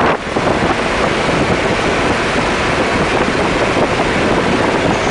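Loud, steady noise inside a BMW M3's cabin as it drives the track at speed: engine, tyre and wind noise blend together, with wind buffeting the microphone.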